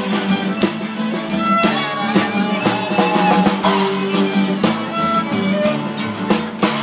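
Music: a busker's acoustic guitar strummed in a steady beat, about two strums a second, with a melody line over it.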